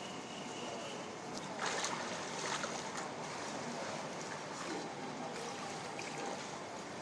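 Sea water splashing and lapping as a steady rush, with a few sharper splashes, the loudest about two seconds in.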